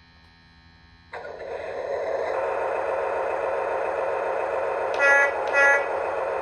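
Lionel LionChief RS-3 diesel locomotive's onboard sound effects starting up. A diesel engine rumble comes on suddenly about a second in and runs steadily. Two short horn blasts sound about five seconds in.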